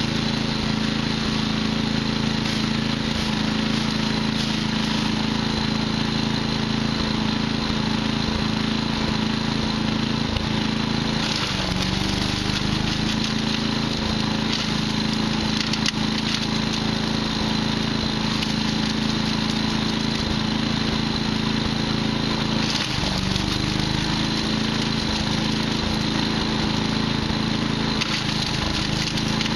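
Patriot wood chipper running steadily and chipping wood, its engine note dipping briefly twice, about 11 seconds in and again about 23 seconds in, as it takes up load.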